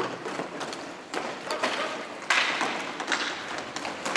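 Roller hockey play: sharp clacks and thuds of sticks and puck on the plastic floor tiles, several in irregular succession, the loudest a little over two seconds in.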